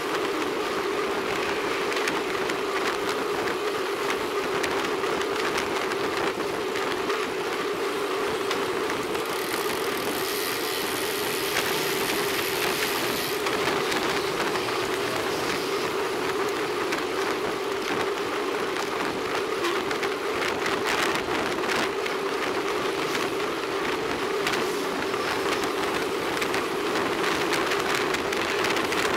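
Road bicycle rolling on asphalt in a group ride, heard from a camera mounted low at the front wheel: a steady rumble of tyre and wind noise, with some light ticking about two-thirds of the way through.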